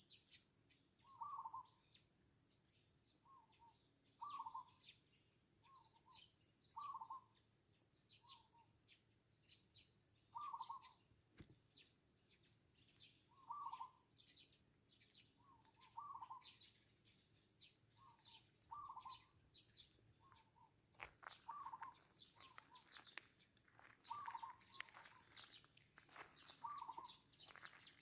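Zebra dove cooing faintly in short repeated phrases, one every second or two, while Eurasian tree sparrows chirp in quick high notes, the chirping busier in the second half.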